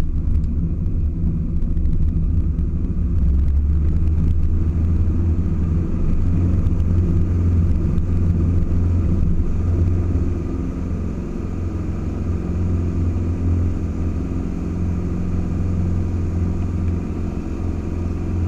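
Mustang II light aircraft's piston engine and propeller droning steadily, heard from inside the cockpit through a touch-and-go ground roll and climb-out. The drone drops slightly in level about ten seconds in.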